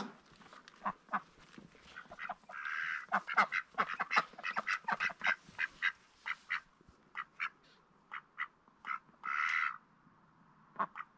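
A pair of mixed-breed Indian runner ducks quacking: a quick run of short quacks that thins out after about six seconds, with two longer calls about three seconds in and about nine and a half seconds in.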